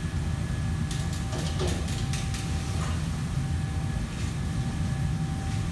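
Steady low mechanical rumble with a faint constant whine over it, and a few brief clatters about one to two and a half seconds in.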